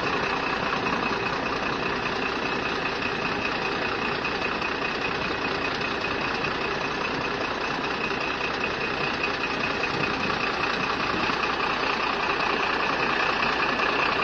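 A vehicle engine idling steadily under a constant hiss, with a faint high steady whine.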